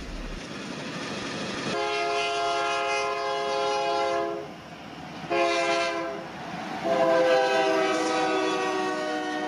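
Train horn sounding a steady chord in three blasts: a long one, a short one, then another long one.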